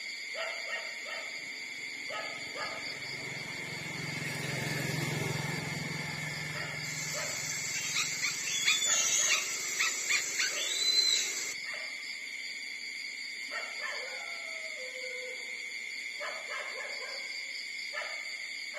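Young puppies nursing on their mother, giving short squeaks and whines, with a louder run of squeals between about eight and eleven seconds in. A steady high hiss runs underneath.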